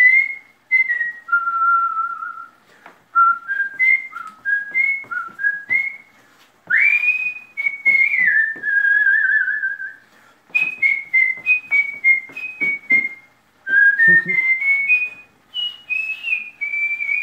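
A man whistling a tune with his lips: a melody of short notes and a few longer held ones, one of them wavering, with brief pauses between phrases.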